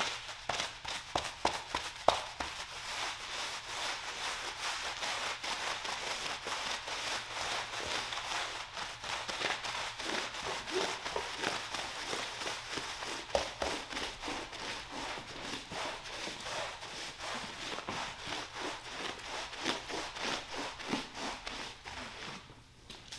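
Long-handled scrub brushes working soapy shampoo into a wet rug: a steady stream of quick swishing, scratching bristle strokes, with a sharp knock about two seconds in. The scrubbing drops away near the end.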